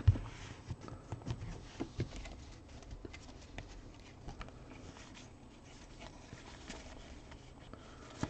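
Trading cards being handled: a stack knocks down onto the table at the start, then faint scattered clicks and rustles as the cards are thumbed and flipped through by hand.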